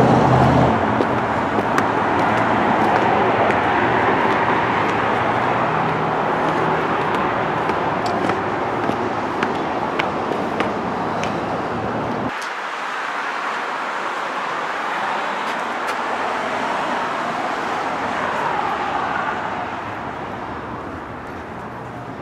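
Steady hiss of road traffic. A low rumble underneath cuts off abruptly about twelve seconds in, and the sound fades somewhat near the end.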